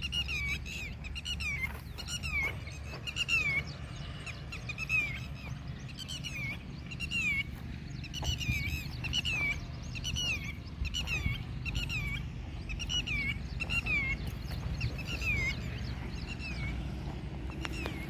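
Red-wattled lapwing calling over and over in alarm: short notes that dip in pitch, one or two a second, the cries of a lapwing mobbing intruders near its nest of eggs. A low steady rumble runs underneath.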